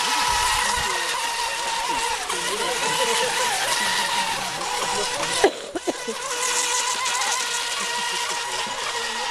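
Radio-controlled mono-hull racing boats running flat out on the water: a steady high motor whine over the hiss of the hull and spray. The sound briefly drops out with a click about five and a half seconds in.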